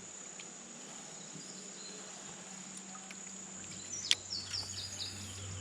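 Steady high-pitched insect drone over faint outdoor background noise, with a sharp click about four seconds in and a short series of high chirps just after.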